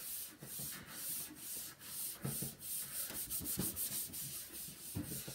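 A sponge scrubbing the plastic top of a CRT monitor's case with baking soda, in repeated back-and-forth strokes about two to three a second. The strokes come quicker for a moment a little past the middle.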